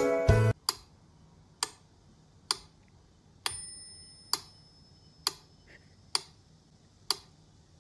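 Steady clock-like ticking, one sharp tick a little under every second. A faint high ring sounds with one tick about three and a half seconds in.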